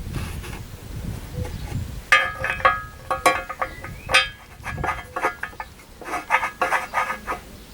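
Metal parts being knocked together or struck, many irregular ringing clinks starting about two seconds in, with a low rumble of handling before them.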